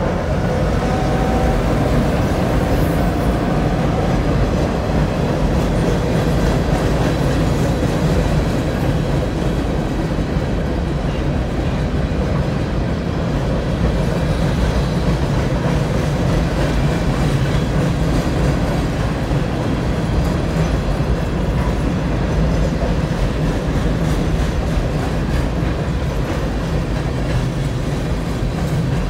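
Freight train of boxcars rolling across a steel girder railroad bridge: a loud, steady rumble and clatter of wheels on the rails.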